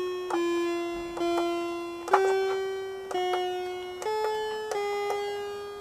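Moog Werkstatt-01 analog synthesizer playing a run of about seven buzzy pulse-wave notes, roughly one a second at slightly different pitches, each starting sharply and fading under the envelope's decay. The envelope generator is routed to modulate the oscillator.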